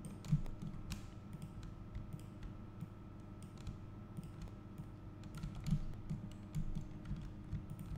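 Irregular clicks and taps of a computer keyboard and mouse, over a faint steady hum.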